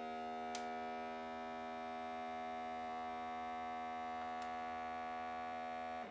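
Countertop vacuum sealer's pump motor running with a steady hum as it draws the air out of a bag, then stopping. Two faint ticks sound over it, one about half a second in and one near the end.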